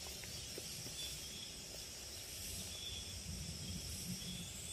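Summer forest ambience: a steady high insect drone with faint short chirps now and then, over a low rumble of wind. Near the end a second, higher-pitched insect buzz sets in.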